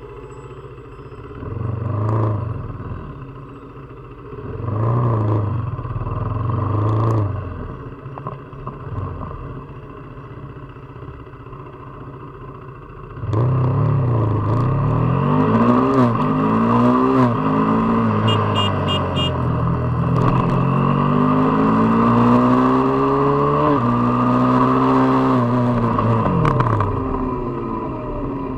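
KTM RC 390 single-cylinder engine and exhaust on the move. In the first half it runs quietly with three short rises in revs. About halfway it gets suddenly louder, and the pitch climbs and falls again and again as the bike accelerates and shifts, over a steady rush of wind.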